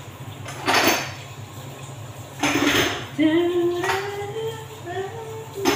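Dishes and pots clattering as they are washed by hand at a sink, in short bursts: about a second in, in the middle, and at the end. Between the last two, a woman hums a slowly rising tune.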